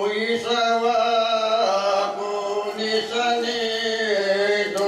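A girl chanting a devotional text into a microphone, her voice singing long held melodic notes with brief breaths between phrases.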